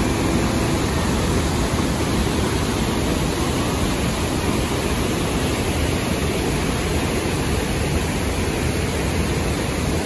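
Steady rush of whitewater: Gold Creek's falls and rapids pouring over rock ledges in a gorge, an unbroken even noise with no changes.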